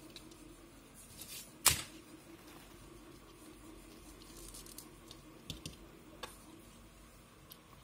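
Quiet handling of a small 3D-printed plastic holder and a clear sheet of adhesive dots: a brief rustle and one sharp click a little under two seconds in, then a few lighter clicks as the holder is set down on the bench.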